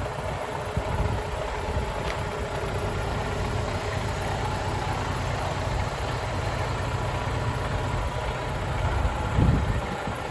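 Heavy-duty diesel engine of a 2020 Freightliner Cascadia semi truck idling steadily, with a brief louder low swell near the end.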